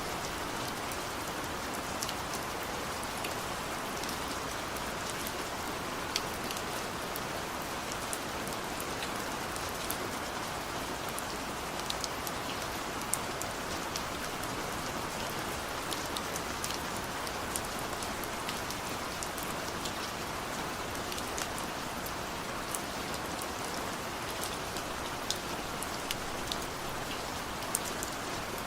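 Heavy rain falling steadily, a dense even hiss with many individual drops ticking sharply on a surface.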